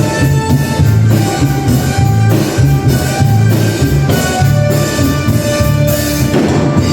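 A live band playing upbeat Latin music, with a drum kit keeping a steady beat under sustained instrumental notes.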